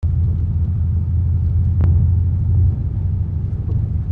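Subaru car driving, its engine and road noise making a steady low rumble, with a single faint click a little under two seconds in.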